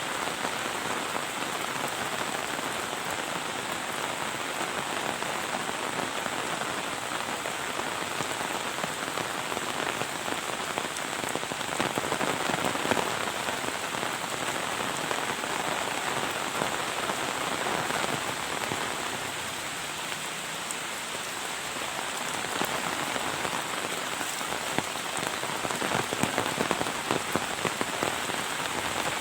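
Heavy rain falling steadily, a dense patter of countless drops hitting the ground and nearby surfaces, easing slightly for a moment about two thirds of the way through.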